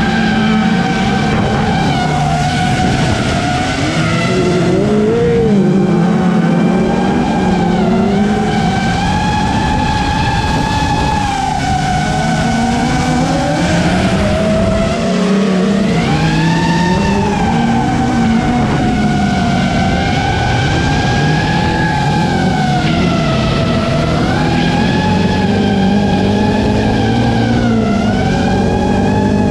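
Motors running, a loud steady whine that wavers gently up and down in pitch.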